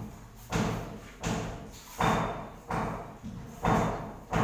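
Hand trowel scraping and spreading a sand-and-cement mortar bed on a concrete floor. There are about six strokes, one roughly every 0.7 s, each starting sharply and fading quickly.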